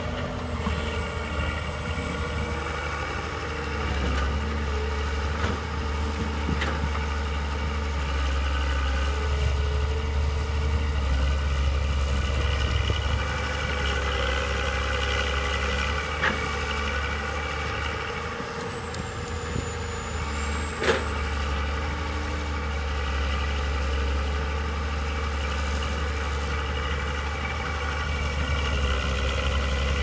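Diesel hydraulic excavators working: a steady engine drone with a high whine that slowly rises and falls, and a few sharp knocks as the bucket works the earth.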